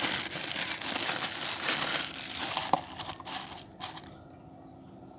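Plastic packing cover crinkling as it is handled and pulled off a 4-inch speaker driver, dense crackling for about three and a half seconds, then dying away.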